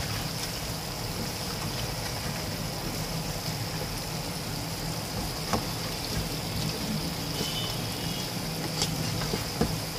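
Mutton pieces sizzling steadily in a kadai as they are fried down with their spices (bhuna), with a few short scrapes and knocks of a wooden spatula against the pan.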